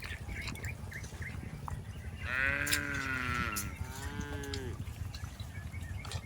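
A cow mooing: one drawn-out call a little over two seconds in, then a shorter second call, both rising and then falling in pitch, over a steady low rumble.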